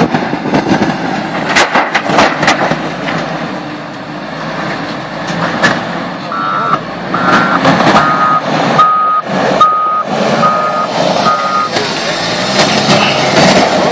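Doosan wheel loader's diesel engine running under load while it dumps compost into a trailer, with occasional knocks. About halfway through, its reversing alarm sounds about seven evenly spaced high beeps as the loader backs away.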